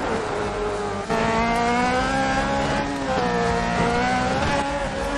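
Off-road cage buggy's engine running hard under throttle. Its pitch falls sharply about a second in, then climbs, falls again near three seconds and climbs again, as the driver lifts off and gets back on the gas or shifts.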